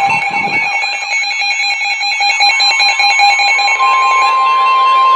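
Weather alert radios sounding their alarms together, a tangle of repeating beeps and warbling tones. About four seconds in, a steady single tone near 1 kHz comes in: the NOAA Weather Radio warning alarm tone that comes before a warning broadcast.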